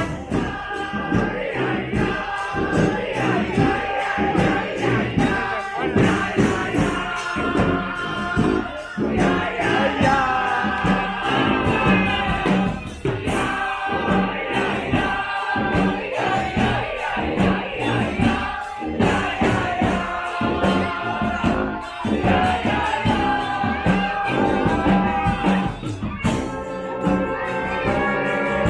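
Live street brass band music: horns playing a melody over drums keeping a steady beat.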